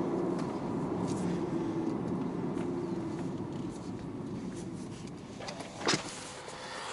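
Car engine and road noise at a steady cruise, the engine note easing slightly, with a sharp click about six seconds in.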